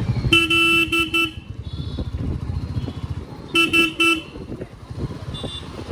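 A vehicle horn tooting in two clusters of three quick beeps, one right at the start and another about three and a half seconds in, over the low running of a motorcycle engine and road noise while riding in traffic.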